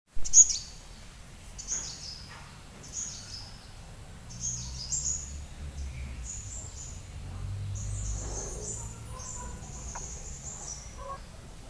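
Small bird giving short, high chirping calls in quick phrases every second or two, over a steady low rumble.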